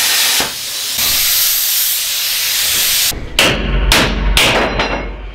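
A loud, steady hiss for about three seconds, with a brief dip about half a second in, then several short hissing bursts over a low rumble.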